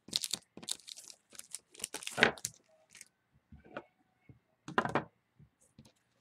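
Short rustling and crinkling handling noises, a run of quick scrapes with the loudest about two seconds in and another near five seconds.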